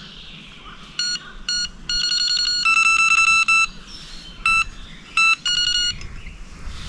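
Electronic bite alarm on a feeder rod beeping in irregular runs: a few short beeps, two long unbroken tones about two to three and a half seconds in, then more short beeps.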